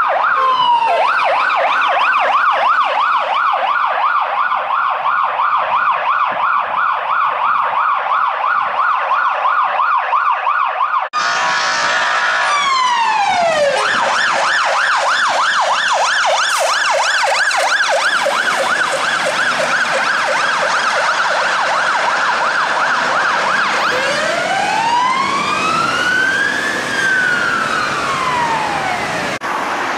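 Emergency-vehicle sirens in fast yelp mode: a police car's rapid yelp, cut off suddenly about eleven seconds in. Another fast yelp follows from a fire engine, joined by slower wail sweeps, one rising and then falling near the end.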